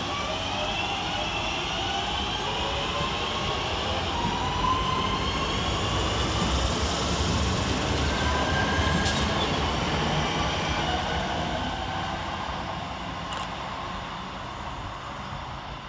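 Two coupled Class 323 electric multiple units pulling away, their traction motors whining in several rising tones over the rumble of the wheels on the rails. The sound swells to its loudest midway and then fades as the train draws off.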